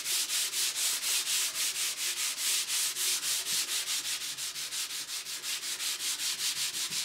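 Sandpaper rubbed by hand across a stripped oak tabletop in quick back-and-forth strokes, a rhythmic rasping hiss about five strokes a second.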